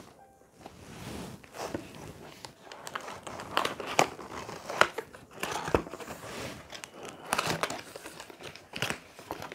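Packaging crinkling and tearing as a parcel is opened by hand: irregular sharp crackles and rips, loudest about four and five seconds in.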